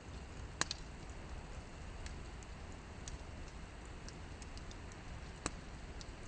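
Wood campfire crackling, with scattered sharp pops; two louder pops, one just after the start and one late on.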